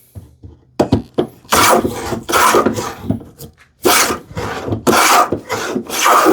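Combination plane plowing a groove in a wooden rail: several short cutting strokes, each a rasping hiss of the iron taking a shaving, with a few sharp clicks about a second in.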